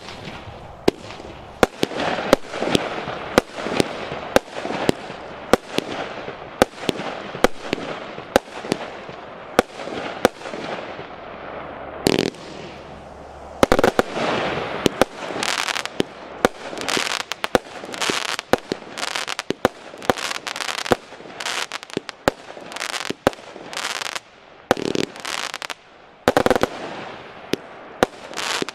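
A 200-shot, 20 mm consumer firework cake firing in a steady barrage: sharp shot reports about two a second, each followed by a crackling burst of stars, with a short lull about twelve seconds in before the shots pick up again.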